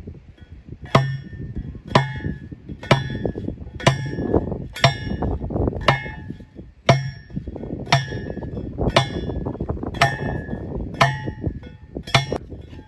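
Manual steel post driver slammed down onto a wooden alder fence post, about once a second, twelve strikes in all, each a ringing metallic clang with a dull thud. The post is being driven by hand because the petrol post rammer has run out of fuel.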